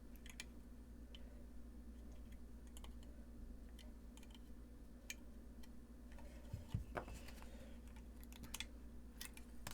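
Faint, scattered small clicks and taps of tools and small metal hardware being handled while assembling a guitar effects pedal kit, over a low steady hum.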